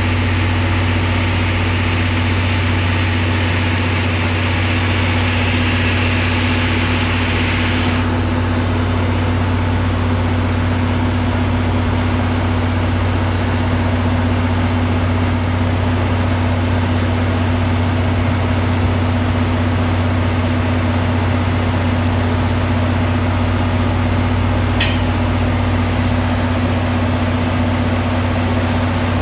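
JNR Class DE10 diesel-hydraulic locomotive's V12 diesel engine idling with a steady low hum. A hiss of air runs over it and cuts off suddenly about eight seconds in, and there is one sharp click near the end.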